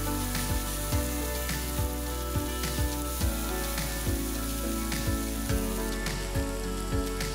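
Diced peppers, carrot and onion sizzling in oil in a stainless steel pot, stirred with a plastic spatula. Background music with a steady beat plays over it and its beat is the loudest thing.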